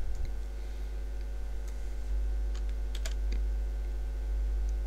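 A handful of short, sharp computer keyboard and mouse clicks, scattered and mostly bunched around the middle, over a steady low electrical hum.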